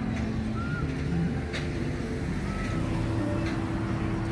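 A vehicle running: a steady low rumble with a held hum.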